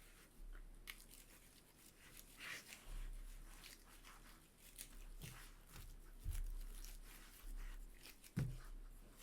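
Dry plant stems and spent flowers crackling and rustling as they are handled and pushed between the strings of a stick-and-string weaving, with two dull knocks in the second half.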